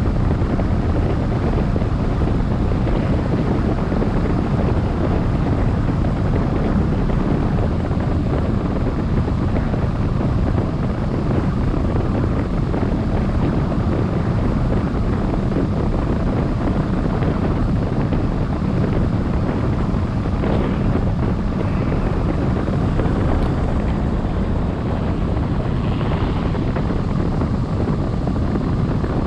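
Wind buffeting the microphone of a camera mounted on a tandem hang glider in flight, a steady low rumbling rush of air.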